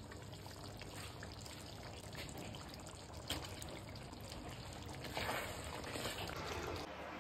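Chicken curry simmering in a steel pot, with a soft liquid trickling and bubbling. There is a brief click about three seconds in, a louder spell just after five seconds, and a spoon stirring the thick curry near the end.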